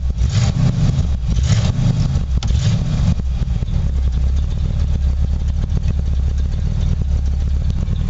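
1979 Ford Bronco V8 idling, heard from inside the cab. It is a little louder and busier for the first three seconds, then settles to a steady idle. It runs with a miss that the owner hopes a cylinder-head job will cure.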